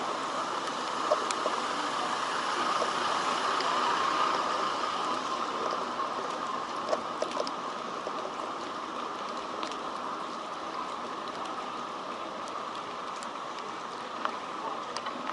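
Typhoon rain falling on a city street: a steady hiss with scattered faint drip ticks.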